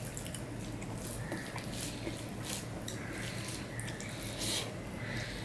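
Close-miked wet eating sounds: fingers squishing and mixing rice with fish curry, then chewing with the mouth. These come as a string of short, sticky clicks every half second or so.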